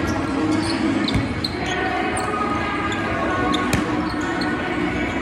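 Basketballs bouncing on a hardwood gym floor during warm-ups, with several scattered sharp bounces over the echoing background chatter of a gymnasium.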